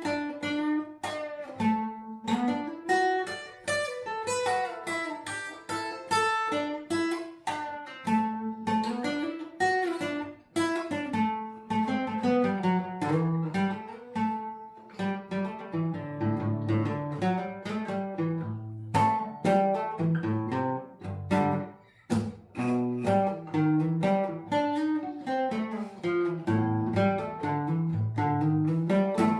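Acoustic guitar played without singing: a steady run of picked notes and chords.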